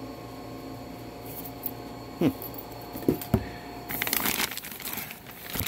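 A few sharp handling knocks, then plastic packaging bags crinkling and rustling from about four seconds in as hands rummage through them, over a steady low hum.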